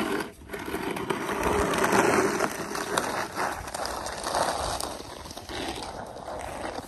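Snow being cleared, heard as a long rough scraping noise that swells around two seconds in and fades near the end.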